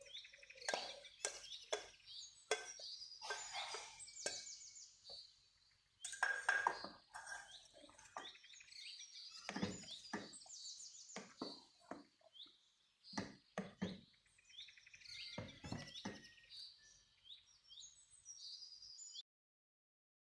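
Small birds chirping again and again, mixed with scrapes and knocks of a wooden spoon stirring thick cream sauce and penne in a stainless steel pot. The sound cuts off suddenly about a second before the end.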